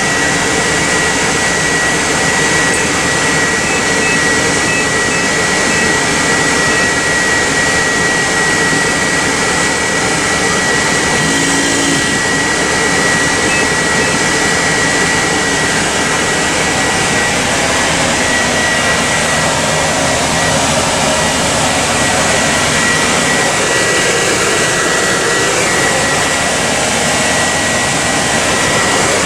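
Steady loud whooshing hum of running fans and motors in an ambulance's patient compartment, with a thin steady high-pitched whine.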